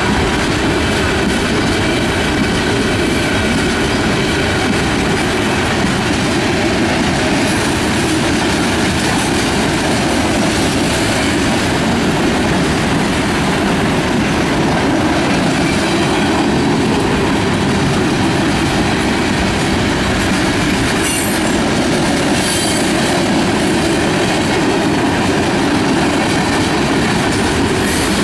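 Freight cars of a Norfolk Southern train, tank cars and boxcars, rolling steadily past: a loud, continuous rumble and clatter of steel wheels on the rail. A faint thin wheel squeal rides over it, with two short high flashes of noise about two-thirds of the way through.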